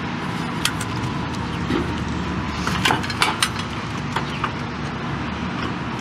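Electrical wires being handled and pulled through a compressor terminal box, with short clicks and rustles about a second in and around three seconds in, over a steady low background hum.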